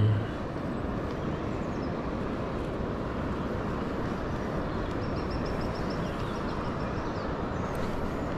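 Steady rushing of a swollen, fast-flowing river. A brief loud falling sound cuts in right at the start, and a faint, fast, high ticking runs for about two seconds in the middle.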